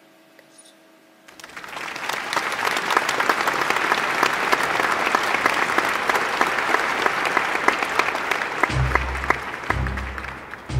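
Crowd applause, starting about a second in and building to a steady clapping that fades near the end. Music with a pulsing bass beat comes in under it near the end.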